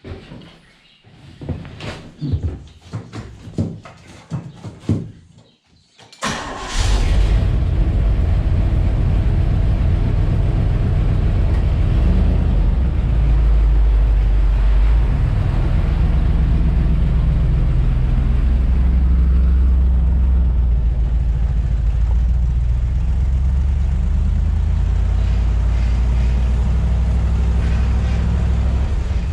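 A few scattered knocks and clatter, then about six seconds in the Jeep's engine starts and keeps running with a steady low rumble.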